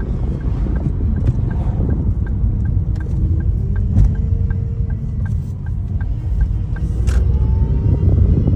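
Ford Focus engine running with a grinding from its broken power steering: a heavy low rumble, a whine that rises and falls in pitch, and a ticking about two to three times a second.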